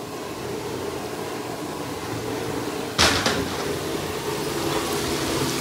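Steady hiss and hum of soft-shell crawfish frying in oil in a King Cooker deep fryer, with one sharp clunk about three seconds in.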